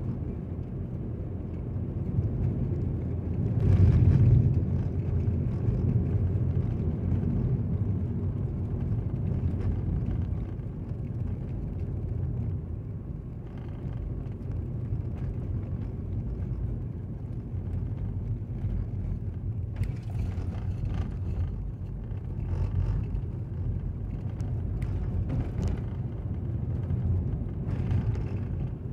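Road noise inside a moving car: a steady low rumble of tyres and engine on a rough paved road, swelling louder about four seconds in.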